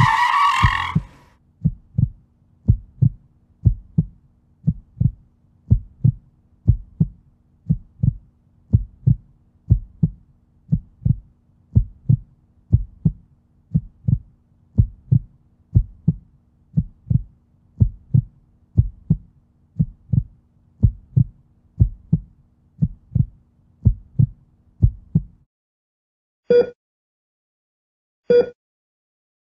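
Heartbeat sound effect: double lub-dub thumps about once a second over a faint low hum, stopping about 25 seconds in. After that come two short, clear beeps about two seconds apart. A tyre screech dies away in the first second.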